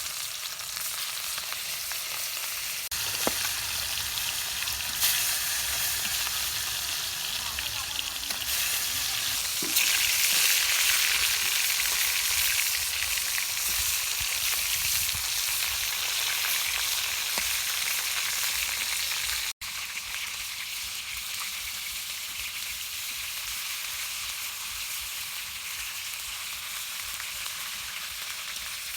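Pieces of snakehead fish sizzling as they shallow-fry in hot oil in a kadai. The sizzle swells about a third of the way in and cuts out for an instant about two-thirds of the way through.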